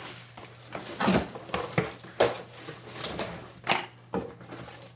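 Handling noise: rustling and a series of irregular knocks and clunks as a cordless power tool is handled and put into a soft tool bag.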